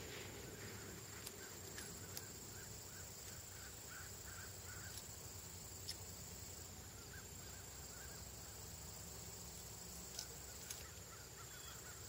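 Faint outdoor ambience with a distant animal calling in short repeated notes, about two or three a second, in a few runs. There are a few faint clicks.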